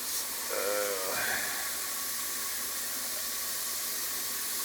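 Ground beef sizzling as it sears in a hot pan, a steady hiss.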